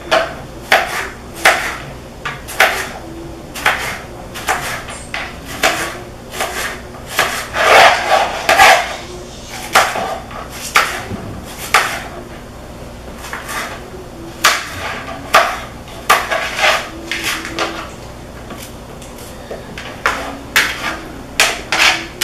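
Kitchen knife chopping summer squash on a plastic plate: irregular sharp chops, about one or two a second with short pauses, and a quicker, louder run of cuts a little over a third of the way through.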